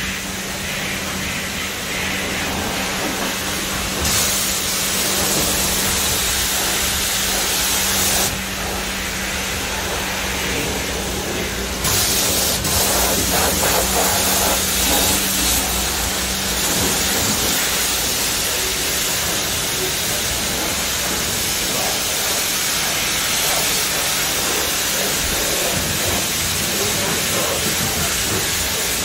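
High-pressure washer spraying water: a loud, steady hiss that grows louder and softer a few times, with a low steady hum from the machine under it that stops about halfway through.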